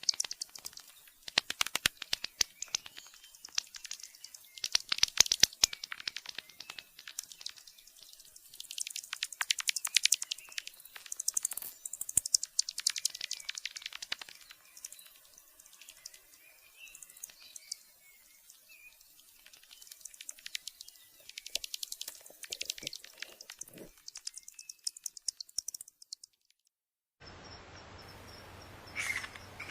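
Bats calling: rapid clusters of sharp, high clicks and chirps that come in bursts of a few seconds each. Near the end the calls break off, and after a moment of silence a different recording begins, with a steady hiss and a couple of chirps.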